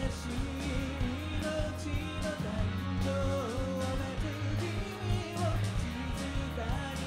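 Live rock band playing a song: a woman singing into a microphone over electric guitars, bass guitar, keyboard and drums with a steady beat.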